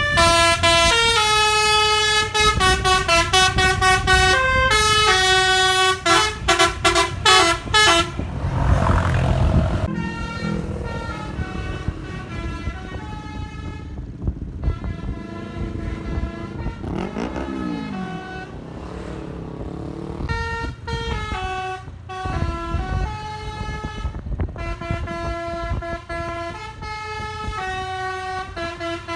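A bus's multi-tone telolet (basuri) air horn played by hand, keyboard-style, stepping quickly through a tune of bright notes. It is loudest for the first eight seconds, with a short noisy burst after that, and then the tune carries on more quietly.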